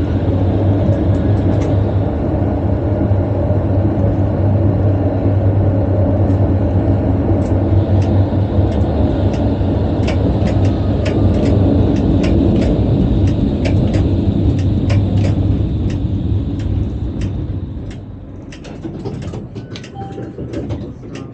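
Škoda VarioLF tram running along the rails, heard from the driver's cab: a steady low rumble and hum with scattered clicks. The noise fades about three-quarters of the way through as the tram slows.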